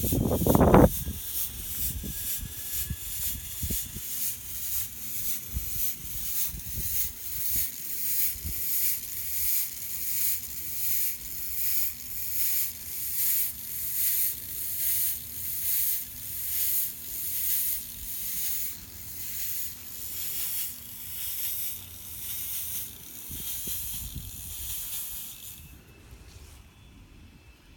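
Fog machine pumping out fog: a high hiss that pulses about once a second and cuts off near the end. A knock sounds about a second in.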